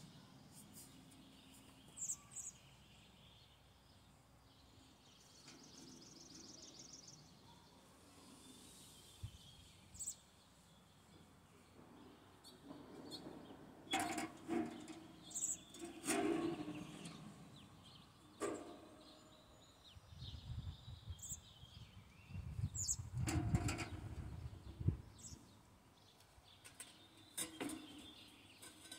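Scattered light metallic clinks and knocks from a stainless-steel box camping stove being handled, grouped mostly in the second half. A bird trills briefly in the background about six seconds in.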